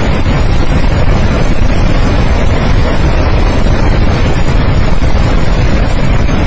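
Floodwater rushing in a swollen mountain river, a loud, steady roar with no break, heaviest in the low range.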